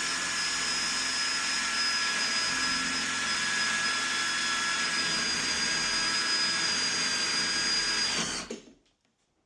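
Power drill running at a steady speed with a high whine, then released about eight seconds in, winding down quickly and stopping.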